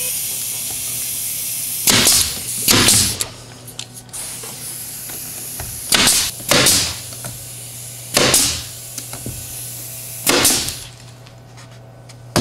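Pneumatic nail gun firing nails into MDF panels: six sharp shots, each with a short hiss of exhaust air. They come in a pair, another pair a few seconds later, then two single shots.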